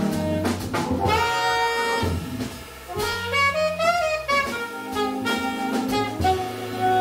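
Jazz organ trio playing a blues: an alto saxophone carries the melody over organ from a Nord Stage keyboard and a drum kit with cymbals. The music drops briefly about two and a half seconds in, then the saxophone returns with a phrase that bends up and down in pitch.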